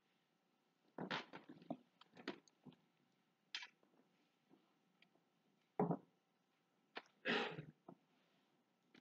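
Faint, scattered knocks, clinks and rustles of metal communion plates and trays being picked up and handed over, in short separate bursts, the loudest about six and seven seconds in.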